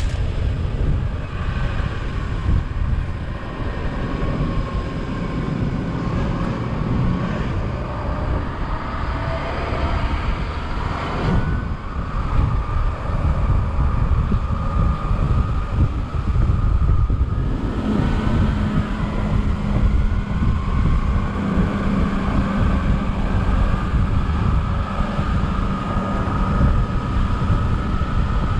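Open-top double-decker bus running along a country road, heard from the open top deck with wind buffeting the microphone over a steady engine drone. The engine note shifts about eleven seconds in and again about eighteen seconds in.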